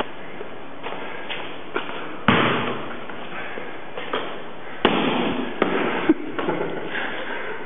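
Basketball bouncing on a concrete floor: a handful of sharp, irregular bounces, the loudest about two seconds in and about five seconds in, each echoing around a large bare room.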